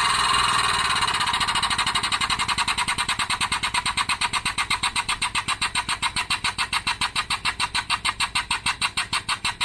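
Air-over-hydraulic press pump running under the foot pedal, driving the ram down onto a sign ballast to crack its steel case. It starts as a steady air hiss, then about two seconds in settles into a fast, even pulsing of roughly seven strokes a second.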